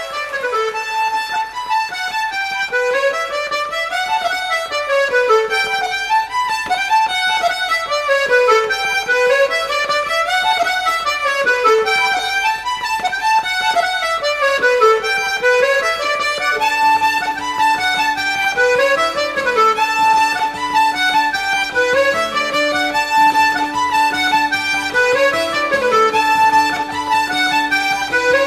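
Instrumental traditional Irish tune with a fast melody running up and down in quick notes. A held lower note joins in about halfway through.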